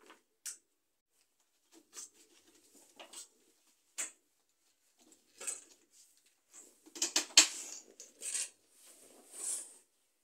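Clicks, taps and scraping of DIY cube-cabinet panels and their connectors being handled and fitted together, with a burst of louder knocks and rattles about seven seconds in.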